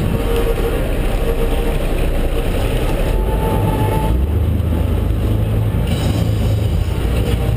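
Sportfishing boat's engine running steadily under way, with wind and water rushing past.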